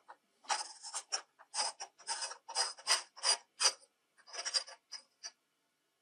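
A threaded brass adapter being unscrewed by hand from the body of a vintage multi tool. The old threads grate in about a dozen short scraping strokes, one per twist, which stop shortly before the end.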